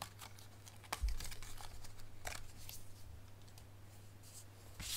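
A die-cut cardstock wreath being popped out of its sheet by hand: light paper rustles and a few small clicks, with a soft knock about a second in, over a faint steady hum.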